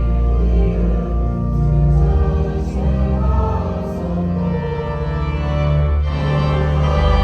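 A large choir singing sustained chords with full instrumental accompaniment and deep bass notes; the harmony shifts about six seconds in.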